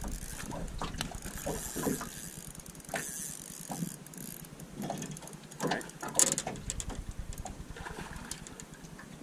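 Spinning reel being worked against a hooked fish: irregular clicking and ratcheting from the reel's gears and drag, with one sharper click about six seconds in.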